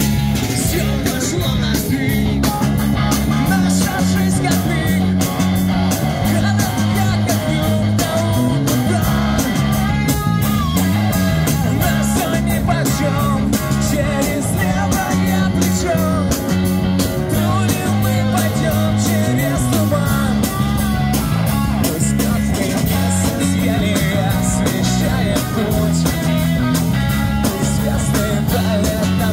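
Live street rock band playing: a drum kit keeping a steady, driving beat under electric guitars and bass through a small PA, with a sung vocal line over the top.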